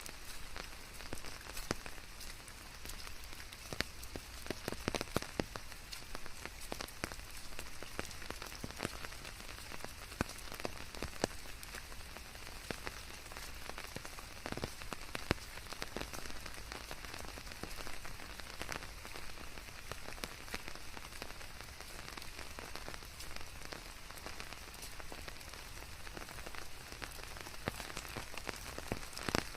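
Steady rain with many individual drops pattering and ticking on a surface.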